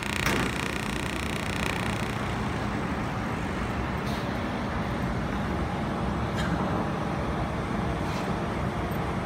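Four-axis laser welding machine running with a steady noisy hum, broken by a few short sharp snaps a second or two apart, the first just as the laser welds the motor part.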